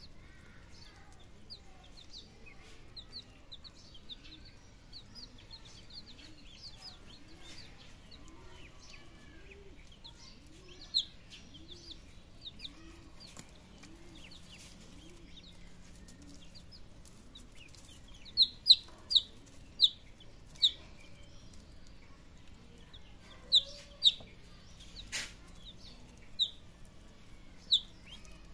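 Baby chicks and ducklings peeping: many short, high chirps, with a string of much louder peeps close by in the last third. A low call repeats steadily through the middle, and a single sharp click comes near the end.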